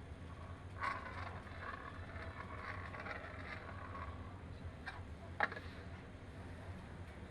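Volkswagen 2.0 L AZG four-cylinder engine running steadily with a low hum, plus two sharp clicks, one about a second in and a louder one near five and a half seconds in.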